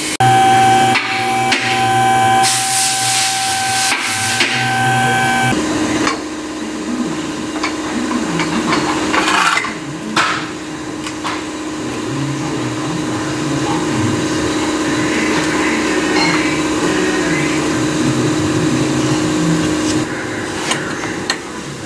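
Repair-shop tool noise at the rear suspension. For the first five seconds or so a tool runs with a steady whine and a hiss of air. Then a steady hum runs under scattered knocks and clatter, and it stops near the end.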